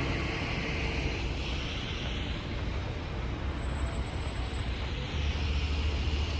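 City street traffic with buses running: a steady wash of vehicle noise under a low engine rumble that grows louder about five seconds in.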